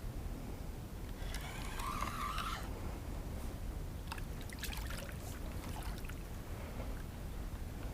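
Water trickling and splashing for a second or so, about a second in, followed by a few light clicks and taps, over a steady low rumble.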